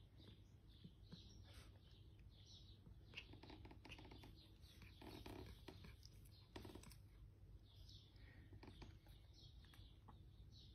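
Faint chirping of small birds repeating throughout, with soft crunching and rustling clicks of cats chewing and tearing at cat grass, busiest in the middle.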